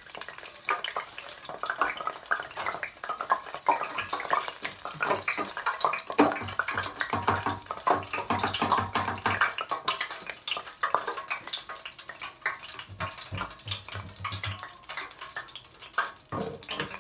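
Water from a tap running and splashing in a kitchen sink, with a steady irregular patter of splashes and small knocks.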